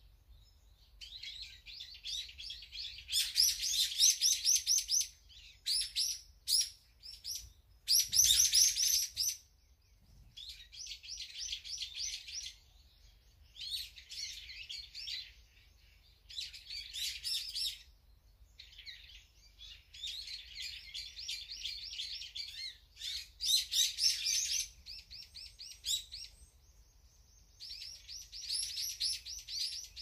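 Small songbirds chirping and chattering in bouts of quick, rapid high notes, each lasting a second or two with short pauses between.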